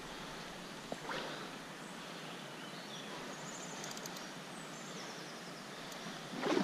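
River water running over a stony bed, a steady rushing, with a few brief high bird chirps. A short louder burst of noise comes at the very end.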